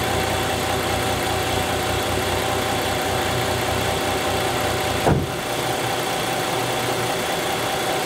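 Chrysler 300 engine idling steadily. About five seconds in there is a single sharp thump, after which the deepest part of the hum is weaker.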